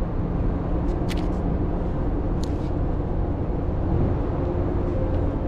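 Steady low drone of a ship's machinery, with a constant hum and two or three short clicks about one and two and a half seconds in.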